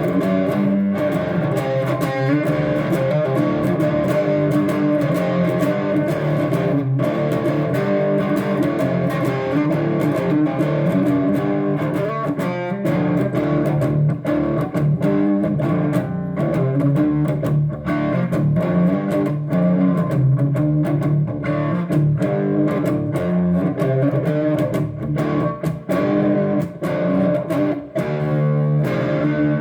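Electric guitar playing a rhythmic song part.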